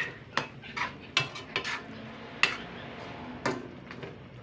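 Metal spoon stirring pork in sauce in a metal wok, clinking and scraping against the pan in irregular sharp clinks, the loudest about two and a half seconds in.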